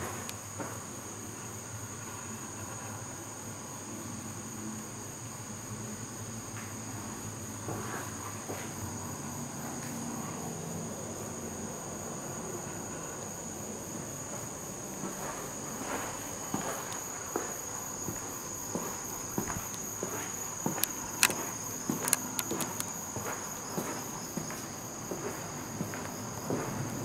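Insects chirring in a steady high pitch, with footsteps on a concrete floor joining from about halfway through as short irregular clicks.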